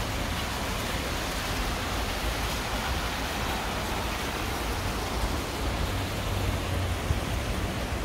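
Stream water rushing steadily over rocks, a constant even noise with a low rumble underneath.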